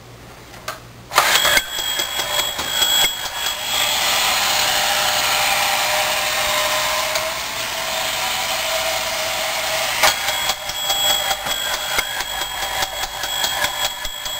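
A 1960s–70s battery-operated tin toy ladder fire engine switched on about a second in: its small electric motor and gears whir steadily with rapid clicking, its built-in bell ringing as it runs in bump-and-go mode and raises its ladder.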